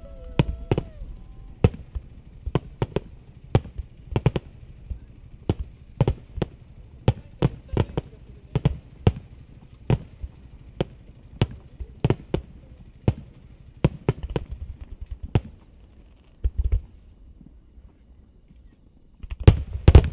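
Fireworks shells bursting at a distance: a series of sharp bangs about one or two a second, thinning out after about fifteen seconds, then a quick cluster of bangs near the end.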